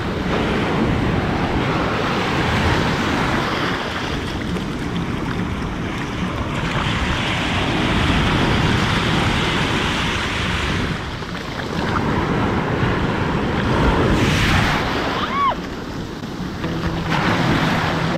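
Ocean surf: small waves breaking and swash rushing up and back over wet sand, the hiss swelling and easing as each wave comes in.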